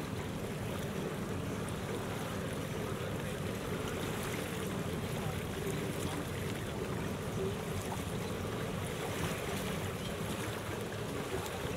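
Steady noise aboard a boat moving slowly through calm harbour water: an even low rumble with water and wind sounds.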